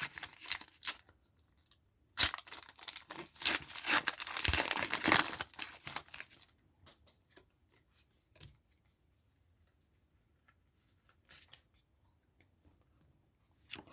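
Foil Pokémon booster pack wrapper being torn open and crinkled: a few rustles, then a dense run of ripping and crinkling lasting about four seconds, followed by a few faint clicks.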